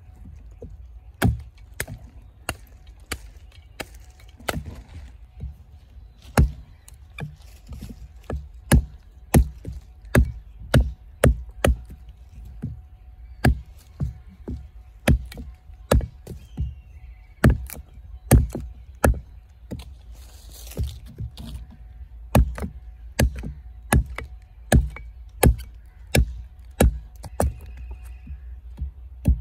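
Replica Iron Mistress Bowie knife chopping a green branch on a tree stump: dozens of sharp chops, one or two a second, as the blade bites through the wood into the stump.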